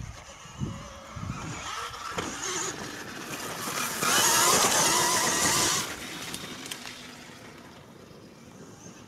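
KTM Freeride E-XC electric enduro bike passing close: a nearly two-second swell of knobby-tyre and flung-dirt noise with a wavering whine, starting about four seconds in, then fading as the bike rides away.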